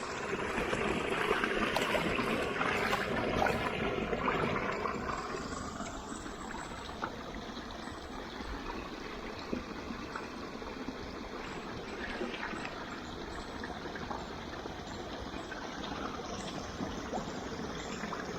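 Shallow running water trickling and streaming, louder for the first five seconds or so, with a few scattered faint ticks.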